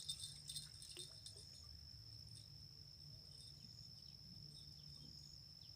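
A faint, steady, high-pitched insect trill runs on without a break, over a low rumble. A few light clicks and jingles come in the first second or so.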